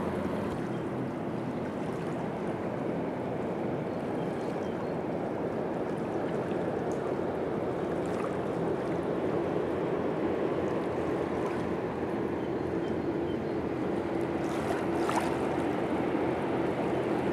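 Steady shoreline ambience: small waves washing at the water's edge, with a faint distant boat engine droning underneath.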